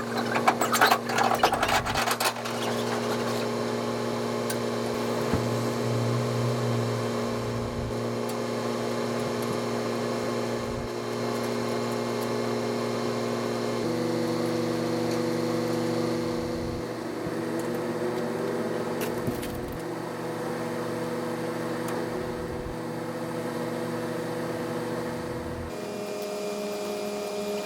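A diesel semi-truck engine idling with a steady hum whose pitch shifts slightly about halfway through and again near the end. A quick run of clicks and knocks comes in the first couple of seconds.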